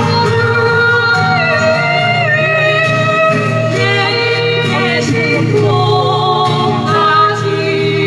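Acoustic guitars played together in a steady accompaniment, under a sustained melody line that glides between long held notes.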